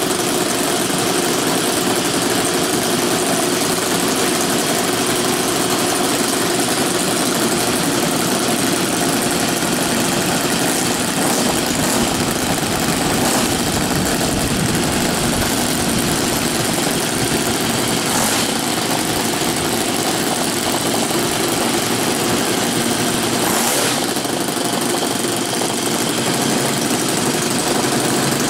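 Four Saito 62 four-stroke glow engines on a large-scale B-17 model running together at a steady speed.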